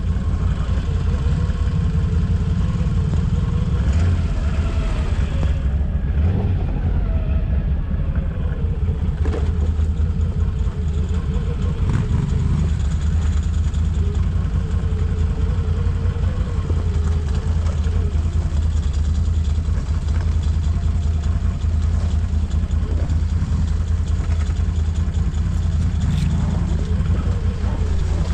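An ATV engine running at low revs that rise and fall slightly, with a few brief knocks.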